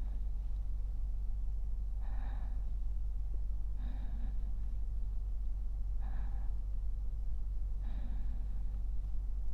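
A man's slow, soft sleeping breaths, about one every two seconds, over a steady low hum.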